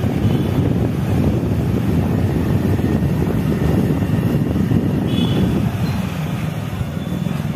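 Motorcycle riding through a road tunnel: steady engine and road noise with wind on the microphone, easing a little near the end.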